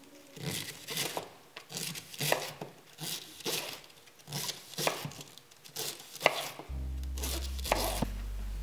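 Kitchen knife slicing cabbage into shreds on a wooden cutting board, with crisp cutting strokes about twice a second. Background music with a bass line comes in near the end.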